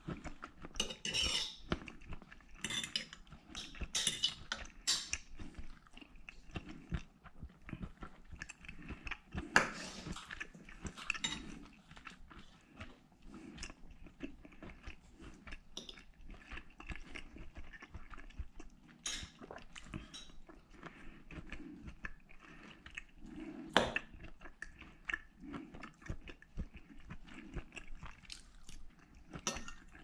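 Close-up chewing of grilled steak, with a knife and fork clicking and scraping against the plate now and then. The sharpest clicks come about a third of the way in and again past the three-quarter mark.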